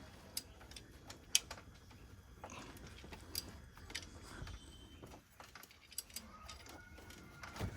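Faint, scattered metallic clicks and clinks, a second or so apart, from a 21 mm socket and wrench working on a crankshaft pulley bolt.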